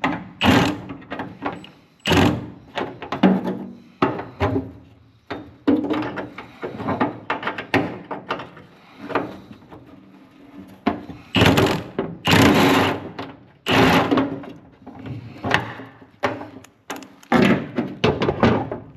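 Hand tools knocking and clanking against metal in irregular knocks, with a few louder clatters just past the middle: a wrench working at a rounded-off nut on an old seatbelt mounting bolt.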